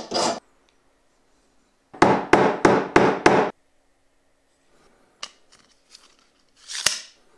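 A hand file rasping on a small metal fitting in five quick strokes about two seconds in, filing it down so that it slips into an aluminium tube. Later come a few light clicks and a short knock and rub as the metal parts are handled.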